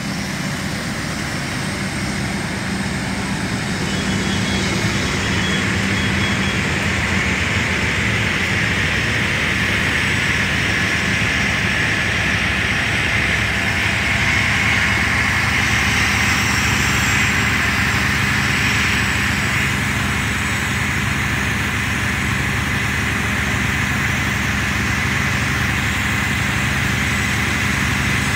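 Fire engine's diesel engine running steadily, with a steady hiss joining in a few seconds in and holding.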